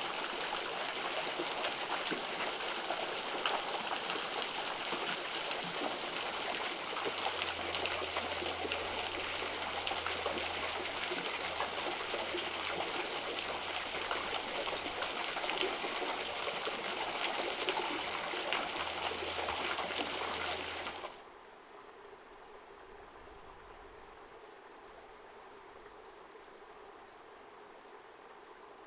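Shallow canyon stream running steadily. About two-thirds of the way through, the sound drops suddenly to a much fainter, quieter flow.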